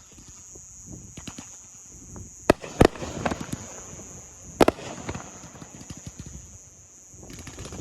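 Fireworks going off: three sharp bangs, two close together about two and a half seconds in and a third near the middle, each followed by a spell of crackling.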